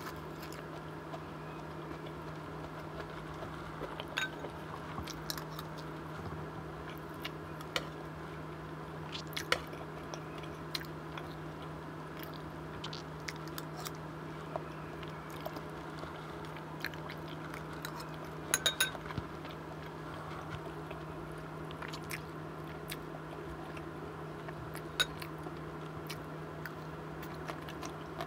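Close-miked chewing of a mouthful of curry, rice and breaded chicken, with scattered sharp clicks of spoons against teeth and bowls, including a quick cluster a little past halfway, over a steady low hum.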